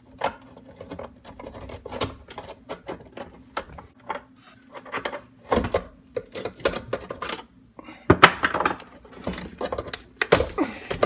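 Stainless-steel InSinkErator 777SS garbage disposal being twisted off its sink mounting ring and worked down from under the sink: irregular metal clanks, scrapes and knocks, the loudest about two-thirds of the way in and again near the end.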